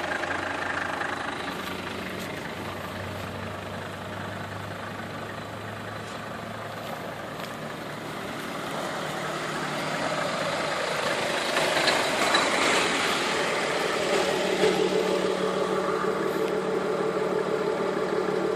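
Mercedes-Benz 250 GD Wolf's OM602 five-cylinder prechamber diesel idling steadily. It grows louder about halfway through as it is heard from outside near the front of the vehicle rather than through the open cab door.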